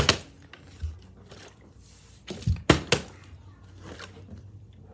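A plastic water bottle being flipped and hitting the floor: a sharp knock at the start, a dull thud about a second in, and a quick run of three knocks between two and three seconds in.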